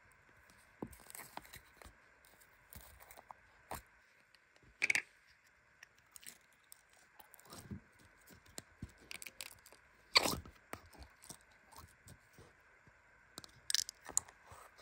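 Hands handling a small plastic bottle of glitter slime: the plastic crackles and clicks as it is squeezed and the slime is worked loose, with sticky tearing sounds and two louder crackles about five and ten seconds in. A faint steady hum runs underneath.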